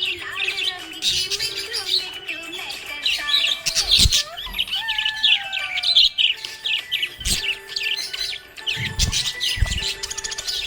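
Budgerigars chirping and warbling in a rapid, busy stream of high chirps, with a few low thumps.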